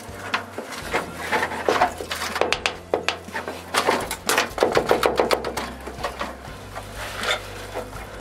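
Chunks of ice being dug and scraped out of a frozen washing-machine drain hose and pump housing by hand: irregular clicks, knocks and scrapes, coming in quick runs in the middle. The frozen drain is why the washer won't drain.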